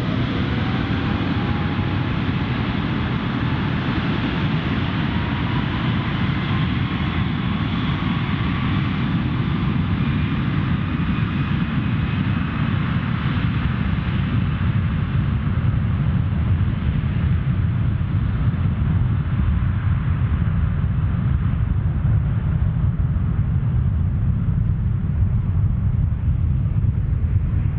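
Airbus A330-243's Rolls-Royce Trent 700 turbofans at takeoff thrust: a deep, steady rumble with a thin whine that rises in pitch over the first ten seconds or so, the higher sound slowly fading as the jet draws away.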